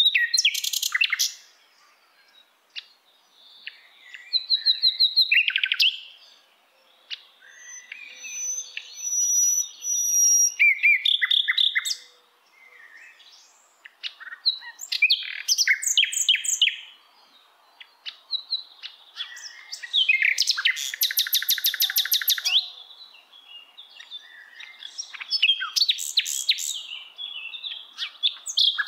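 Small songbirds singing: a string of varied chirps and short whistled phrases, with a long fast trill about twenty seconds in.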